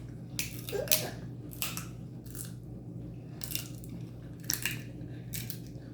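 Close-up eating of seafood-boil food: biting and chewing with short crunching, smacking sounds, about one a second, and a brief hummed 'mm' about a second in.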